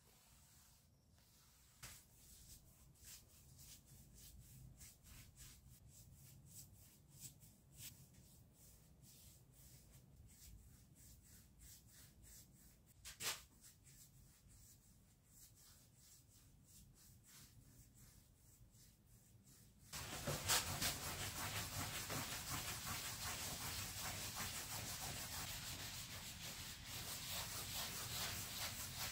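A cloth rag rubbing and wiping over a stained pine dresser top, with some brush strokes: faint repeated strokes with one sharp tap about 13 seconds in, then much louder, steady close-up rag rubbing from about 20 seconds on.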